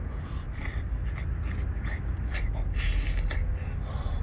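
Close-up eating sounds: wet smacking, sucking and breathing as a man bites into and chews a large piece of cooked sea snail meat. Irregular short clicks and slurps sound over a steady low rumble.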